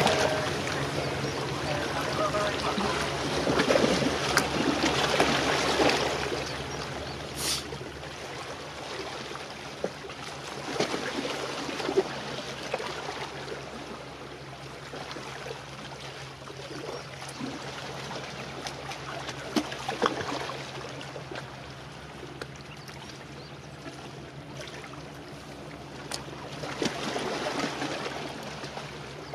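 Small waves splashing and lapping at the water's edge, irregular and louder in the first few seconds and again near the end, over a steady low hum.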